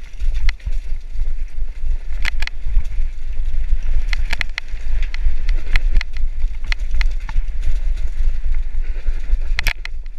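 Mountain bike descending a rocky gravel trail, heard through an action camera: heavy wind rumble on the microphone with frequent sharp clicks and rattles as the bike jolts over stones, a loud cluster of them near the end.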